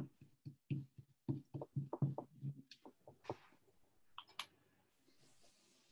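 Paint being dabbed through a stencil onto paper on a table: a quick run of soft taps, about four or five a second, for roughly three seconds. A couple of sharper clicks follow about four seconds in.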